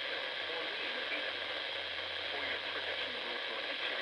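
Weather radio receiver hissing with steady static, a weak broadcast voice faintly audible beneath the noise.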